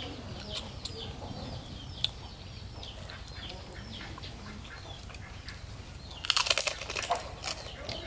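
Birds chirping with short, high, falling calls again and again, over a steady low hum. About six seconds in comes a loud second or so of close-up crunchy chewing of crisp food.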